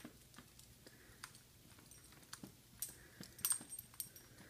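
A small dog in little sneakers walking across carpet: faint, scattered light clicks and ticks, a few brighter ones bunched together about three seconds in.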